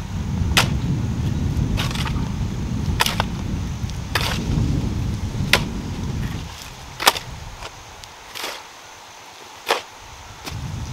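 Garden hoes chopping into dry, stony soil: about eight sharp strikes roughly a second or so apart, from two people working. A low rumble underneath fades out about six seconds in.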